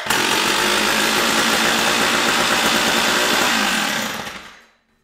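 Stihl 056AV chainsaw's 81cc two-stroke engine starting on a pull and running steadily for about four seconds, without bar or chain, then stopping and running down over about a second. It restarts readily on its new replacement electronic ignition module, fitted in place of the failed Bosch unit.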